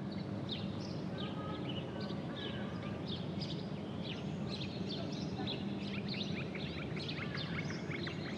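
Many small birds chirping and twittering, dense and overlapping, over a steady low rumble of background noise.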